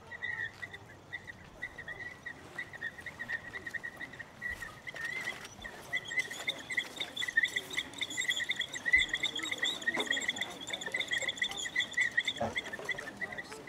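A small mouth whistle blown as a bird call: a warbling, fluttering trill held around one high pitch. It fades briefly about five seconds in, then comes back stronger with bright overtones.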